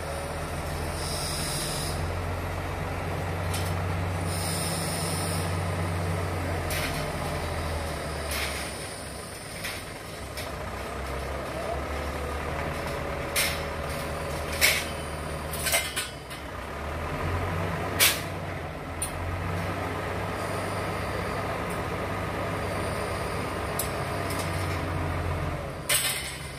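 Hino truck's diesel engine running to power a truck-mounted hydraulic crane, its low hum rising and falling in level. Short hisses come near the start, and several sharp metallic knocks come later, the last as the steel scaffolding load comes down to the ground.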